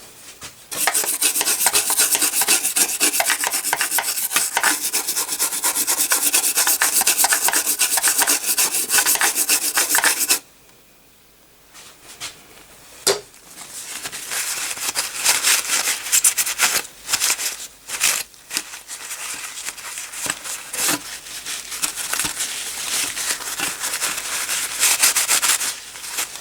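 Rapid scrubbing and scraping strokes as a part is cleaned by hand, for about ten seconds before stopping abruptly. After a short pause and a click, the scrubbing resumes in shorter, broken bouts.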